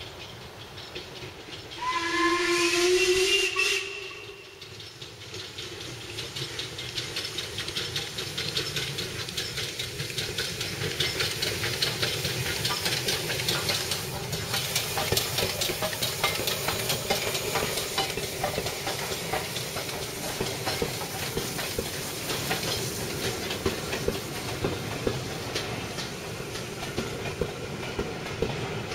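Steam locomotive sounding its whistle once for about two seconds, one tone rising slightly in pitch. Then the steam-hauled train runs past, a rush of noise growing louder with rapid clicking of wheels over the rail joints.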